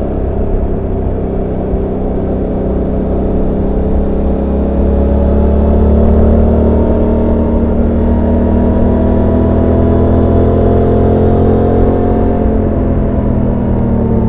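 Suzuki GSX-8S 776 cc parallel-twin engine heard onboard while riding, pulling under light throttle. Its pitch climbs slowly for several seconds, then drops as the throttle eases off near the end.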